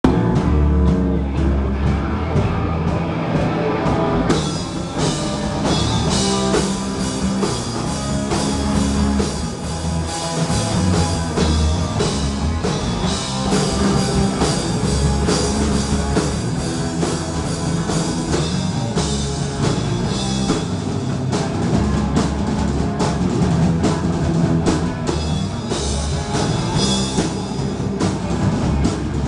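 Live rock band playing loud: drum kit, electric guitar and bass, with the cymbals and full band coming in about four seconds in.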